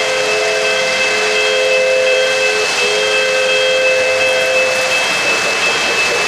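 Model steam locomotive's electronic whistle sounding two long chord blasts, the first about two and a half seconds, the second ending about five seconds in. Underneath is the steady running noise of O-gauge model trains rolling on three-rail track, with a thin high whine throughout.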